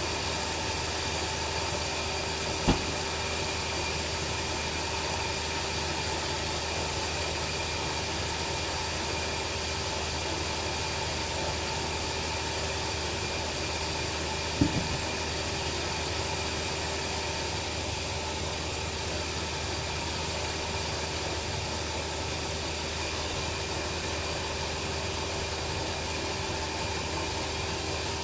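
Bandsaw sawmill running steadily with a constant hum and whine, with two sharp knocks, about 3 seconds and about 15 seconds in.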